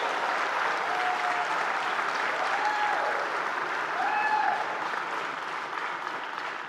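Large audience applauding and cheering, with a few voices whooping above the clapping, slowly dying down near the end.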